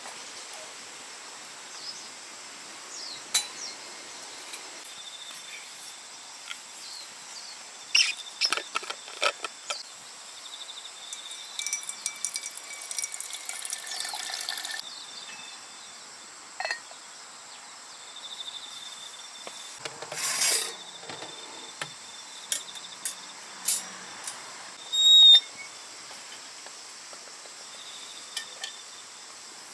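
Insects chirping steadily, with scattered clinks and knocks from a kettle and mug being handled for tea. There is a few seconds of rushing noise about twelve seconds in, and a short loud knock about twenty-five seconds in.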